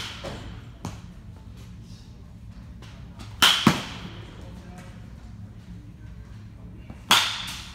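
Three sharp cracks of a bat hitting a baseball, about every three and a half seconds, each with a short ringing tail.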